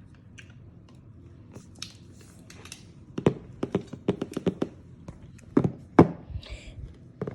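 Hands handling the keyboard's packaging: light rustling, then a string of irregular taps and thunks from about three seconds in, the loudest two near the end.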